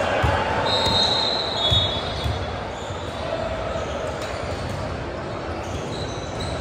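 Basketball being dribbled in a gym, a few low bounces in the first couple of seconds, with high sneaker squeaks on the court about a second in, over a steady murmur of the hall.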